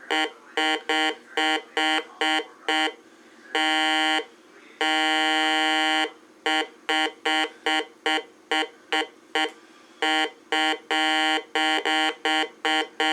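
Heathkit GD-1190 metal detector sounding its audio tone in short beeps, about three a second, with a few longer held tones, as a metal measuring tape passes over its search coil. The beeps are its response to the metal, the detector working again after a chip swap and realignment.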